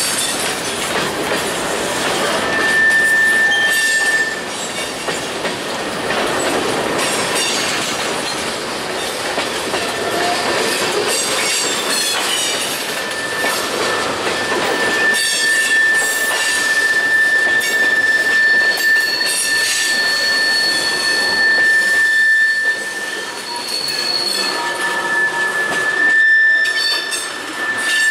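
Freight cars rolling past on a curve: wheels clattering over the rail joints while the wheel flanges squeal against the rail in a steady high tone, briefly a couple of seconds in and then almost without a break from about halfway through.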